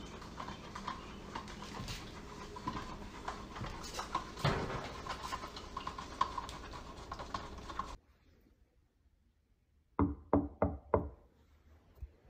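Low household room noise with scattered light clicks and clinks. This cuts to near silence, then four quick knocks on wood come in a row, the loudest sounds here.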